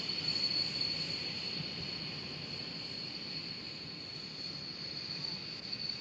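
Faint, steady high-pitched whine over a low, even hiss.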